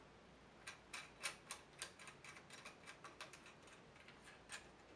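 Faint, sharp metallic clicks at uneven spacing, about three or four a second, as the slip-on muffler's mounting bolt, washer and nut are fitted and snugged up by hand at its bracket.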